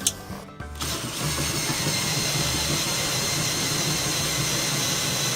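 A machine, like a small engine or motor, running steadily, starting about a second in after a brief dropout.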